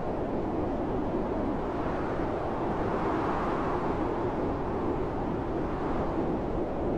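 Blizzard wind blowing steadily, a low rushing noise of wind and snow that swells slightly about halfway through.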